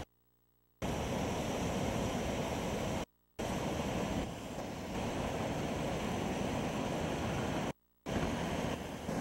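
Floodwater rushing over a low weir and along a swollen, muddy channel: a steady roar of water noise with wind buffeting the microphone. The sound cuts out completely three times: at the start for most of a second, and briefly about three seconds in and near the end.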